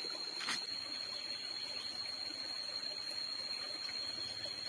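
Small stream trickling steadily, with a thin steady high-pitched tone running under it and a single click about half a second in.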